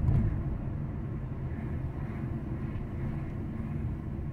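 Steady low rumble of a vehicle driving, engine and road noise, with a brief louder bump right at the start.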